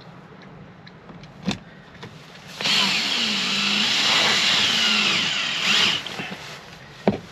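A small electric motor whirs for about three seconds, its pitch wavering, starting and stopping abruptly. A single knock comes before it and another near the end.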